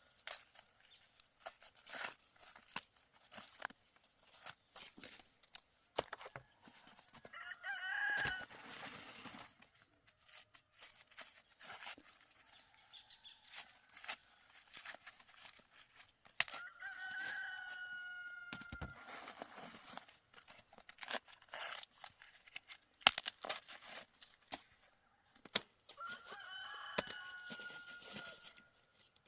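A rooster crows three times, each crow lasting two to three seconds, roughly nine seconds apart. Short crackling and tearing clicks run between the crows.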